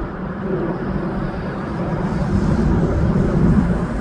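Airplane flying overhead: a steady engine rumble that swells a little near the end.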